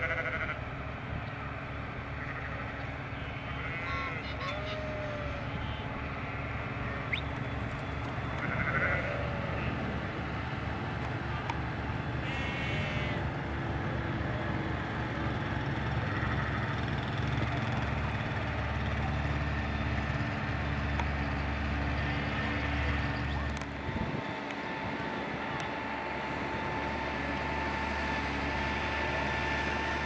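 Sheep bleating several times, mostly in the first half, over the steady low rumble of a farm vehicle engine, which grows heavier about halfway through.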